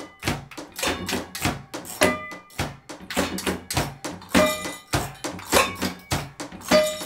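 Improvised kitchenware percussion: frying pans and utensils knocked and tapped in a steady rhythm, about three strikes a second. Roughly every two and a half seconds one struck metal pan rings out with a clear tone.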